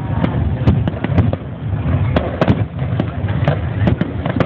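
Aerial fireworks going off in a rapid barrage: a dense, irregular run of bangs and crackles, several a second, over a continuous low rumble.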